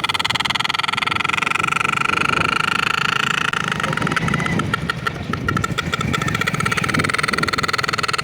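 Motorcycle running with a toy pipi horn fitted into its exhaust silencer, so the exhaust blows a steady high honking tone over the pulsing engine. The tone turns choppy for a couple of seconds about halfway through.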